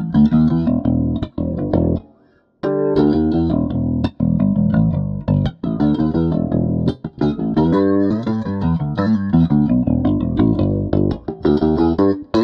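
Electric bass guitar played through a flanger effect: plucked notes and chords with a sweeping, trippy whooshing tone. There is a brief break about two seconds in.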